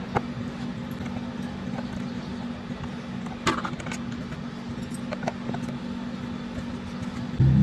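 Honda Vario automatic scooter's single-cylinder engine running at low revs with a steady hum, with light metallic rattling and clicking over it and one louder clatter about three and a half seconds in. This rattle at low RPM is the annoying noise the scooter has. The engine note gets louder just before the end.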